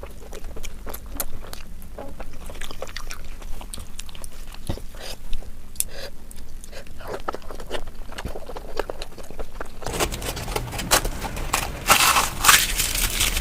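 Close-miked chewing and biting of puri with curry: a run of small sharp crunching and wet mouth clicks. Near the end there is a louder crackling burst.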